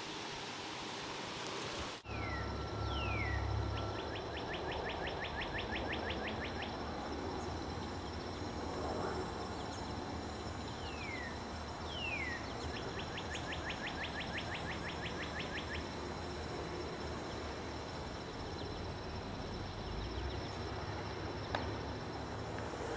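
A songbird sings twice, each song two down-slurred whistles followed by a fast, even trill lasting about three seconds. Steady high insect buzzing runs underneath. For the first two seconds only a hiss of wind noise is heard.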